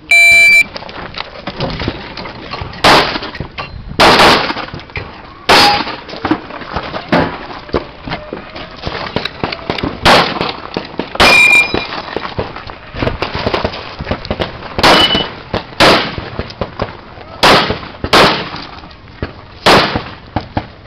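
A shot-timer start beep, then about ten 9 mm pistol shots from a Smith & Wesson M&P 9, fired singly and in quick pairs with pauses of a second to several seconds between them. The first shot comes about three seconds after the beep.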